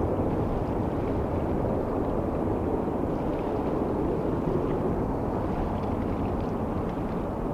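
Airbus A330-203's GE CF6-80E1 turbofan engines at takeoff power, a steady low rumble that slowly fades.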